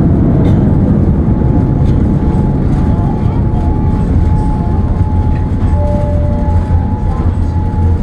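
Inside a jet airliner's cabin as it rolls along the ground after landing: the steady low rumble of the engines and the wheels on the pavement, with a few faint steady tones coming and going above it.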